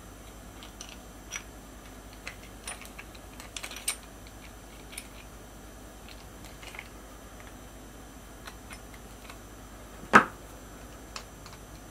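Scattered light clicks and taps of small bolts and parts being handled by hand on a workbench, then one louder clank near the end as a pair of metal water pump pliers is picked up off the bench.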